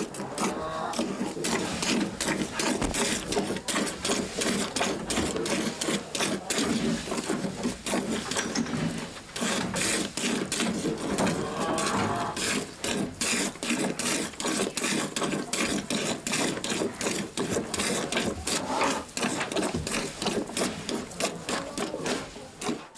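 A cow being milked: a fast, steady run of short rhythmic swishing strokes of milking.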